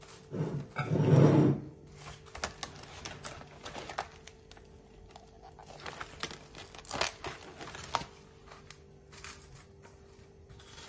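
Plastic cling film crinkling as it is stretched and smoothed by hand over a glass baking dish, with one louder rustle about a second in and scattered crackles after.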